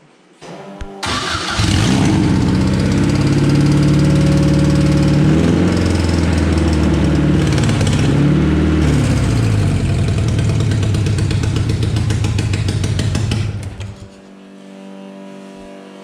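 Honda K20 inline-four engine firing up about a second in and running loudly, its revs rising and falling under a hand-worked throttle. Near the end it falls away sharply as it begins to die on stale old fuel.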